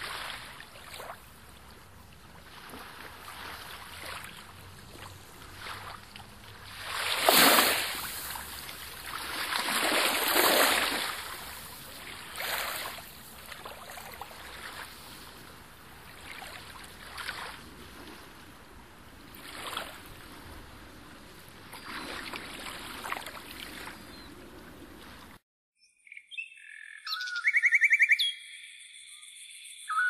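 Small waves washing in over a pebble shore, swelling and fading every few seconds. Near the end this cuts off suddenly and is followed by a few high whistled calls and a rapid trill.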